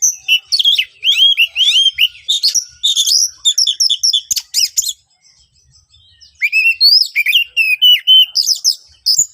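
Oriental magpie-robin singing harsh and loud, a fast run of varied whistled notes and sweeps. It sings in two bouts with a brief pause about halfway through.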